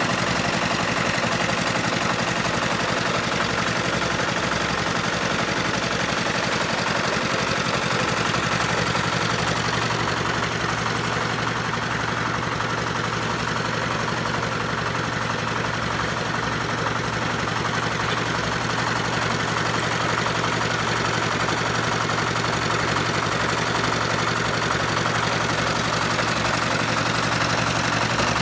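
Small diesel engine of a drum concrete mixer running steadily at constant speed.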